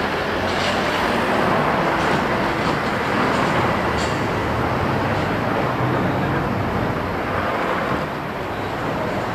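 Steady rumbling and rustling street noise, muffled by a jacket pocket with fabric rubbing over the microphone, with a few faint clicks.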